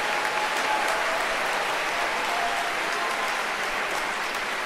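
Audience applauding, steady and dense, easing off slightly near the end.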